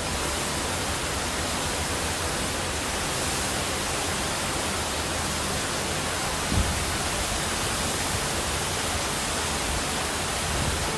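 Strong storm wind blowing steadily, rumbling on the microphone, with a brief thump about six and a half seconds in.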